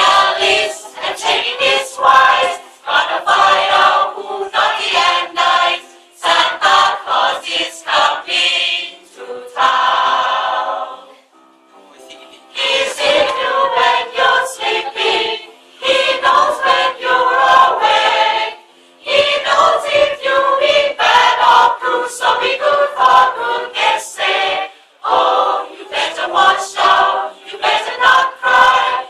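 Small mixed choir of men and women singing a Christmas song together, in sung phrases with short breaks between them and a longer pause about eleven seconds in.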